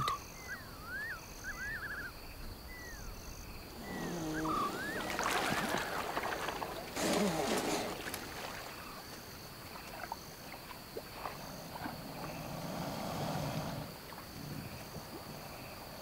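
Night ambience of insects calling in short repeated pulses, with a run of quick rising-and-falling chirps in the first few seconds. From about four seconds in, water splashing and sloshing as crocodiles feed on an elephant carcass in the river, strongest for a few seconds and returning more weakly later.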